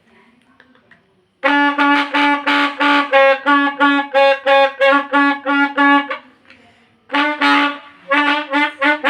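Toy trumpet being blown in a fast series of short toots on one steady note, about three a second, stopping for about a second and then starting again near the end.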